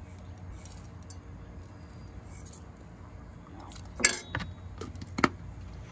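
Dishes and utensils clinking: a quiet first half, then a few sharp clinks from about four seconds in, the first of them the loudest.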